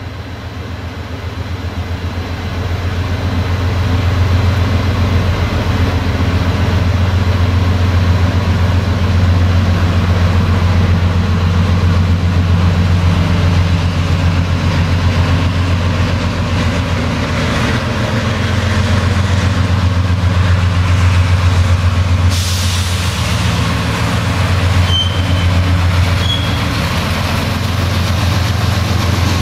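Diesel freight locomotive drawing closer with its engine running in a deep steady drone. From about three quarters of the way in, as it passes, a rushing wheel-and-rail noise from the open freight wagons rolling by joins in, with a couple of brief high squeals.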